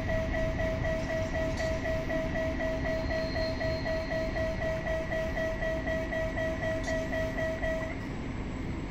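Level-crossing warning signal beeping in a steady, fast rhythm of about four beeps a second, over the low rumble of a passenger train pulling away. The beeping stops near the end as the crossing clears.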